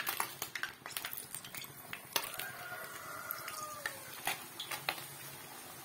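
Thenkuzhal dough being pressed into hot oil in an iron kadai: scattered clicks and clinks of the press and utensils against the pan, over the faint sizzle of frying. A thin squeak runs for about two seconds midway.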